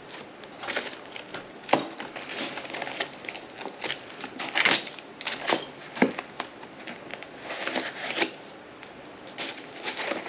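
Rummaging through product packaging: plastic crinkling and rustling with scattered clicks and sharp knocks of parts against the box and foam insert, the sharpest about two seconds in and again about six seconds in.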